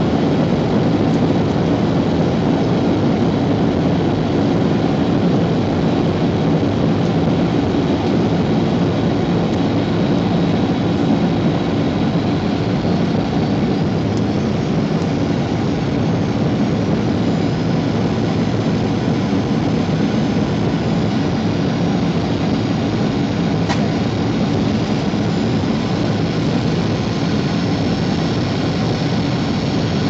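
Steady cabin noise inside a Boeing airliner on approach: engine drone and rushing airflow, with a few faint steady tones running through it.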